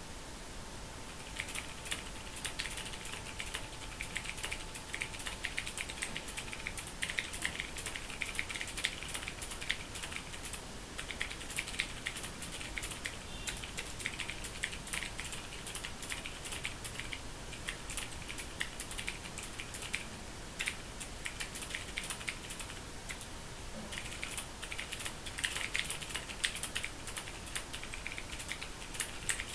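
Fast continuous typing on a Ducky Mecha mechanical keyboard: rapid key clicks in quick runs, starting about a second and a half in, with brief pauses twice, over a steady hiss.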